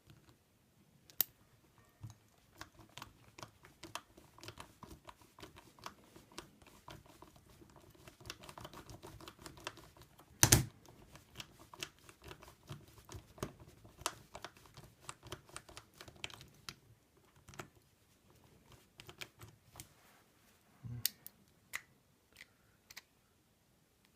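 Many small metallic clicks and rattles of a 7-needle tubular lock pick being wiggled back and forth in a 7-pin tubular lock, with one much louder click about ten seconds in. The tension is too loose, so the pins do not set and the lock stays shut.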